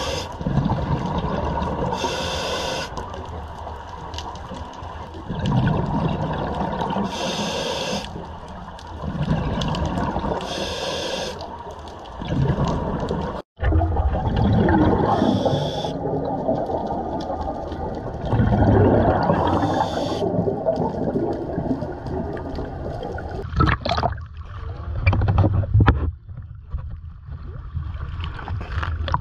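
Underwater camera audio of scuba diving: regulator exhalation bubbles hiss out in a burst every few seconds over a muffled low rumble of water. Near the end it gives way to water sloshing at the surface.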